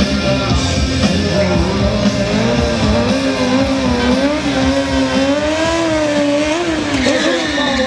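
Kawasaki stunt motorcycle engine held at high revs through a wheelie, its pitch swinging up and down as the throttle is worked and dropping near the end. Music plays under it.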